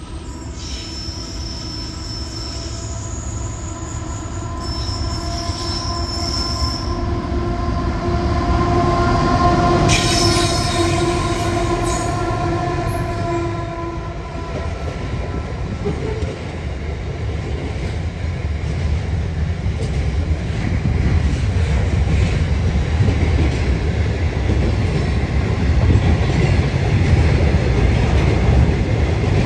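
Two Aurizon diesel-electric freight locomotives approach and pass. They are loudest about ten seconds in, with steady engine tones, and high wheel squeal comes and goes in the first seven seconds. Then a long string of container wagons rumbles and clacks past, growing louder toward the end.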